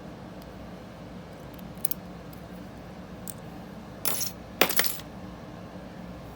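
Metal clicks and clinks from handling a small brass lock. A few light ticks come about two seconds in, then two sharper clinking rattles, each a fraction of a second long, come around four to five seconds in.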